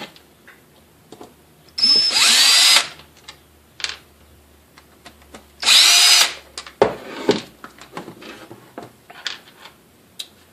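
Power drill backing out the stapler housing's screws in two short runs of about a second each, the motor whine rising in pitch as it spins up. Small clicks and rattles of the screws and plastic housing being handled come between and after the runs.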